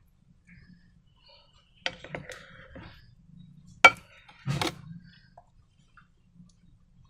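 A few sharp clicks and knocks of hard objects being handled, the loudest about four seconds in.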